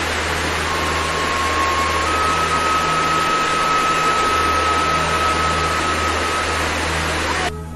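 Waterfall cascading over rocks: a steady rush of water with a thin steady tone over it for a few seconds. The rush cuts off suddenly near the end.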